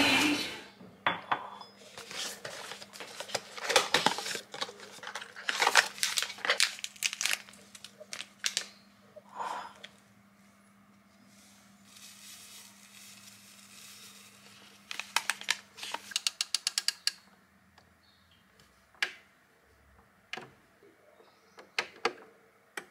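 Kitchen handling sounds: a paper drink-powder sachet crinkling and tipped into a ceramic cup, with light clinks of crockery. About two-thirds through comes a quick run of small clicks, then a few single clicks near the end as the buttons of a countertop hot-water dispenser are pressed.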